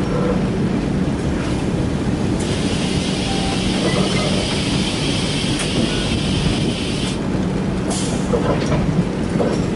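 Rajdhani Express passenger train running along the track, a steady rumble with a constant hum. A high hiss comes in about two and a half seconds in and stops about seven seconds in.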